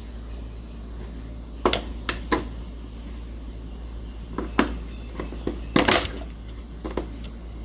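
Sharp clicks and clacks of a magnetic kitchen-roll holder rack being handled, about a dozen separate knocks in irregular bunches over a steady low hum.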